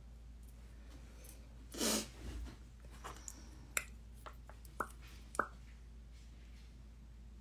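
A short breath through the nose about two seconds in, then a few light clicks and taps of makeup tools and a compact being handled.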